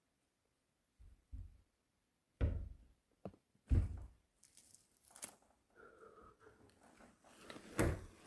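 A series of dull knocks and thumps: two small ones about a second in, then heavier ones about two and a half and four seconds in, the loudest near the end.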